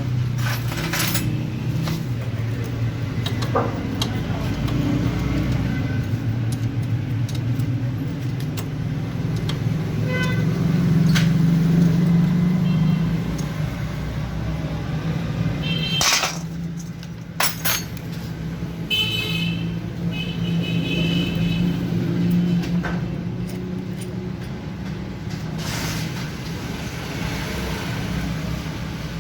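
Street traffic: vehicle engines running steadily, with several horns honking at intervals, and a few sharp knocks.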